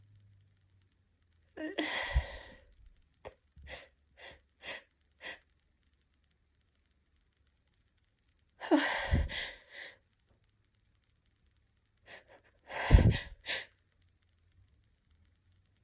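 A woman with a head cold sneezing three times after taking chhinkni sneezing snuff, the third sneeze the loudest, with short sniffs in between.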